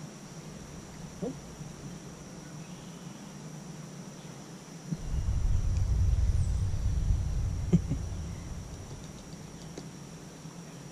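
A steady, high-pitched insect drone. About five seconds in, a low rumble rises suddenly and fades out over the next few seconds, with a couple of light knocks.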